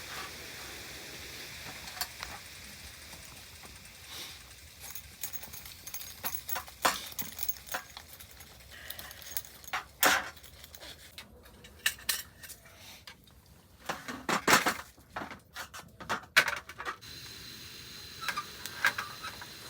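Scattered clinks, knocks and clatters of metal cookware and utensils being handled, with a few louder clatters around the middle.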